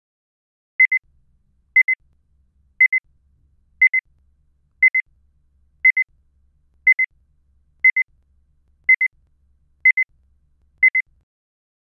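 Electronic timer beeping: a high beep-beep pair repeated once a second, eleven times. It counts off the time given to answer the question just read out.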